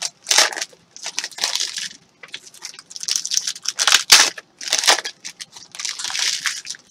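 Trading cards and their foil pack wrappers crinkling and rustling as they are handled, in irregular bursts.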